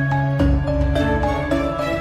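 Background music: a soft song with held notes and a steady low bass pulse.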